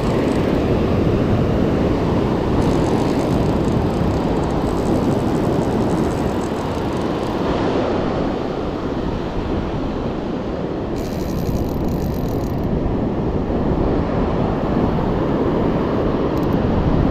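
Steady wind and surf noise on an open beach, an even rushing rumble with no distinct events.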